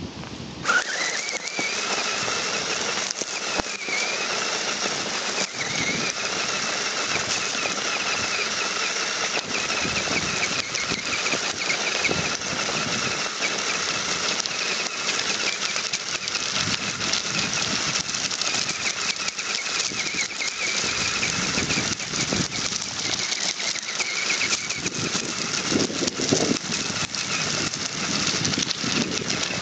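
Electric motor and gearbox of an HPI radio-controlled rock crawler whining as it drives: the whine rises sharply about a second in, then holds, wavering slightly with the throttle, over a steady crunch and rustle of the wheels on dry grass and gravel.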